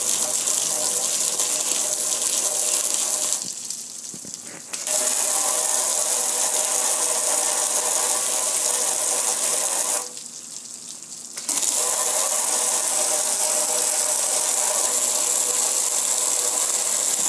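Pressure washer running, its jet of water spraying and splattering over a gas grill, with a steady hiss and a steady hum. The spray stops twice, each time for about a second and a half.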